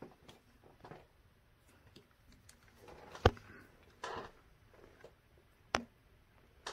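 Faint handling noise of a metal camera cage and its mounted accessories being moved by hand: light rustles and taps, with a sharp click about three seconds in and another near six seconds.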